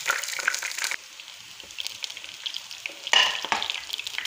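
Chopped garlic sizzling and crackling as it fries in hot coconut oil, stirred with a slotted spoon, on its way to turning crisp. The sizzle drops back after about a second and flares up louder about three seconds in.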